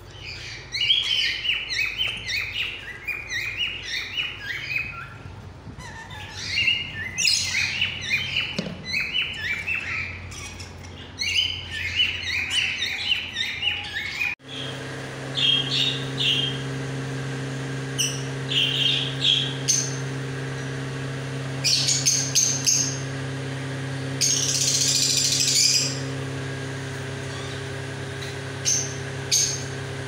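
Dense, rapid chirping and chattering of many small caged parrots. About halfway through, the chirping cuts off and a steady mechanical hum takes over, broken by a few short sharp bird calls and one harsh screech of about two seconds.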